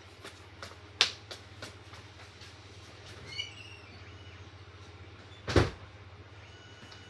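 Household knocks over a low steady hum: a sharp click about a second in, a brief high chirp a little after three seconds, and a louder thump about five and a half seconds in.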